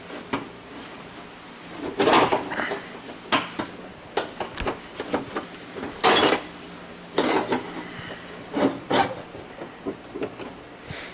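Irregular clattering, knocks and short scrapes of hand work with tools on a car bumper, loudest about two seconds in and again about six seconds in.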